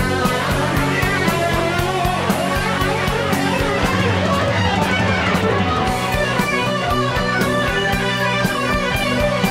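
Heavy metal music: electric guitars playing quick, shifting notes over a sustained bass line and a steady drum kit beat.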